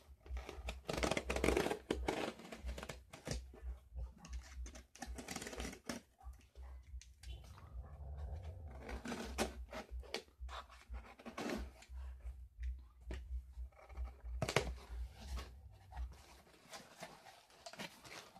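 Utility knife slicing through packing tape and cardboard on a shipping box, in uneven scraping strokes with a sharp click about three-quarters of the way in. Near the end the cardboard flaps are pulled open.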